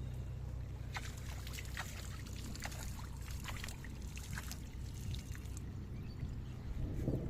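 Water splashing and dripping in quick irregular bursts for several seconds, over a steady low hum, typical of a net being worked in pond water.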